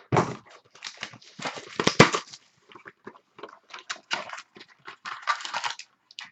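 Trading cards and card boxes being handled: irregular rustling with light knocks and clacks, and one sharp click about two seconds in.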